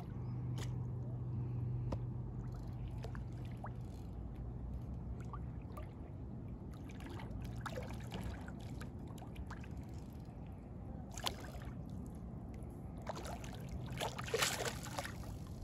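Water sloshing and trickling with scattered light clicks, growing into louder splashing near the end: a hooked carp being played at the water's edge.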